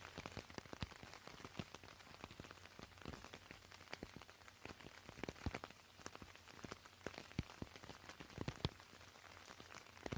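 Rain falling: a soft, steady patter of many small drops, with an occasional louder drop standing out.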